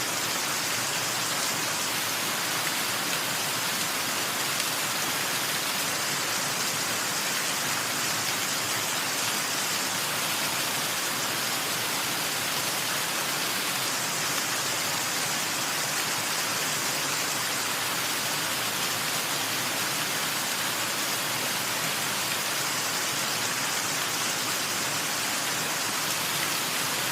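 Waterfall: falling water rushing in a steady, dense hiss, with little deep rumble.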